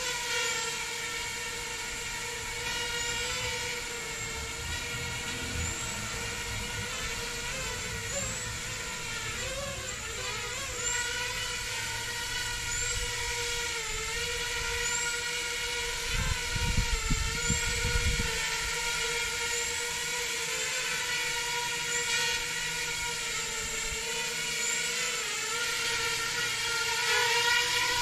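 Small custom FPV quadcopter's four motors and propellers hovering, a steady high whine whose pitch wobbles as the throttle is worked, most clearly about ten seconds in and again near the end. A brief low rumble comes about two-thirds of the way through.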